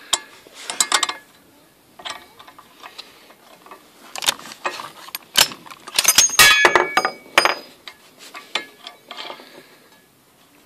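Metallic clicks, clinks and knocks from handling a .50 BMG rifle and its cartridge on the shooting bench, with the loudest run of sharp, briefly ringing metal clinks about six to seven and a half seconds in.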